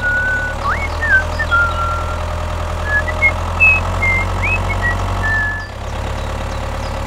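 Tractor engine running steadily at a low, even pace, with short high chirps and whistled glides scattered over it. The engine sound dips briefly about two thirds of the way in.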